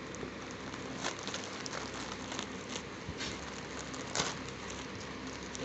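Courier packet being opened: irregular crinkling and tearing with scattered sharp crackles.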